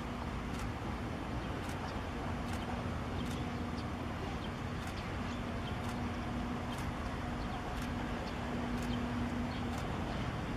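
Steady low hum and rumble of a large container ship under way close by, with scattered short high chirps over it.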